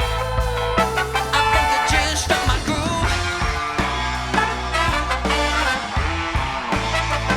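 Soul band playing an upbeat instrumental passage with no singing: steady bass and drums under sustained pitched notes.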